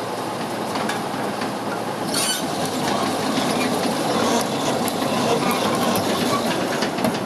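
John Deere 690D-LC excavator running, a steady mechanical noise with metallic rattling and clanking that grows gradually louder, with a sharper clatter about two seconds in.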